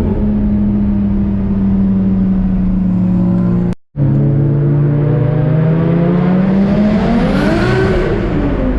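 Nissan Skyline R33's built RB25DET turbocharged straight-six running under way at a steady pitch. The sound cuts out briefly about four seconds in. Near the end the revs climb and fall back, with a hiss around the peak.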